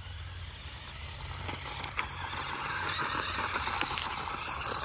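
Radio-controlled car running over a dirt track, a noisy whir of motor and tyres that grows louder about two seconds in. A few sharp clicks and a steady low rumble sit underneath.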